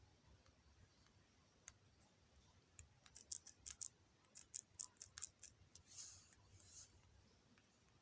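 Light taps on a phone touchscreen, a quick run of about a dozen sharp clicks from about three to five seconds in, followed by a brief scratchy rub.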